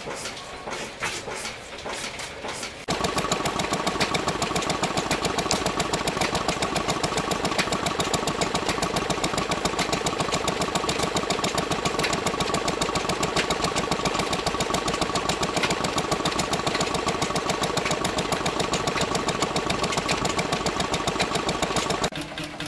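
Small air-cooled stationary engine driving a generator set, running steadily at speed with a fast, even exhaust beat and a constant high tone over it. For about the first three seconds, before it comes in, a Blackstone horizontal stationary engine runs more quietly with a light clicking.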